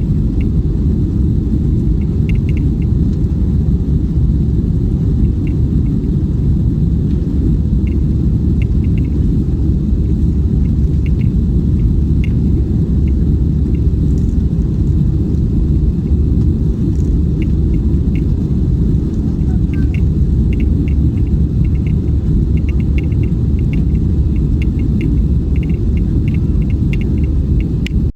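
Steady low rumble of an Airbus A320's engines and airflow heard inside the cabin, with light ticking rattles scattered through it.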